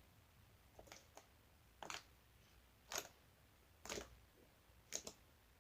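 Clicky slime being squeezed and worked by hand, giving small sharp clicks about once a second.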